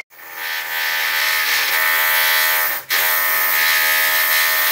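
Electric drill motor whine, digitally pitch-shifted so it comes out as a steady buzzing chord of tones. It builds up over the first second, runs steadily, cuts out briefly about three seconds in, then resumes.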